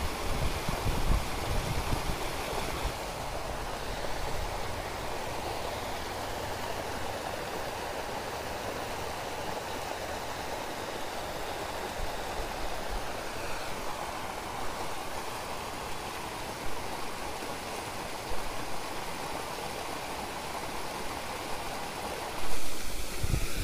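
Steady rushing of flowing river water, with a brief louder bump near the end.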